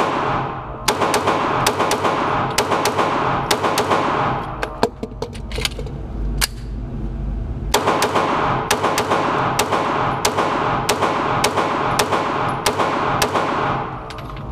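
Pistol gunfire: many shots in quick strings, roughly two or three a second, thinning to a few scattered shots around the middle before picking up again.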